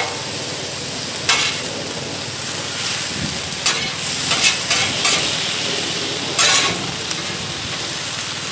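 Flank steak strips and sliced onion and green bell pepper sizzling steadily on a Blackstone flat-top griddle, with metal spatulas scraping across the griddle top several times as the meat and vegetables are pushed and turned.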